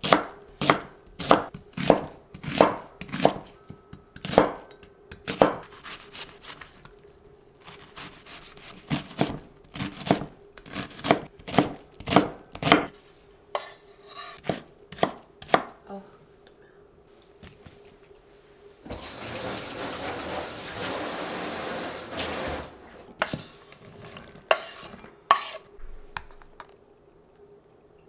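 Chef's knife slicing onion on a wooden cutting board: steady, evenly spaced chops about one and a half a second, thinning out after about sixteen seconds. About nineteen seconds in comes a harsh rustling scrape lasting a few seconds, then a few last knocks.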